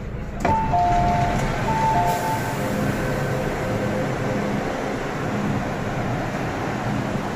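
MTR M-train doors opening with a sudden clunk, followed by an electronic two-note chime sounding twice, then a steady rumble of the stopped train and the station platform.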